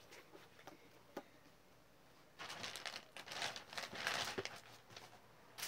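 Rustling and crinkling from school supplies being handled, beginning about two and a half seconds in and lasting about three seconds, after a few faint clicks.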